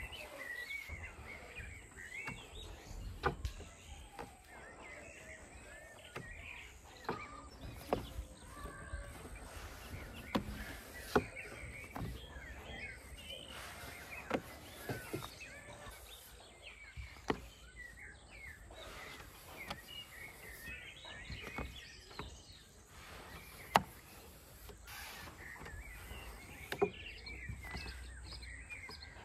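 Long thin wooden rolling pin rolling out thin dough on a round wooden board, with irregular knocks of the pin against the board. Small birds chirp in the background.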